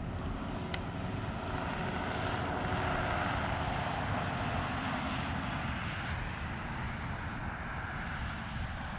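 A distant engine's drone passing by, growing louder to about three seconds in and then slowly fading, with a single short click just under a second in.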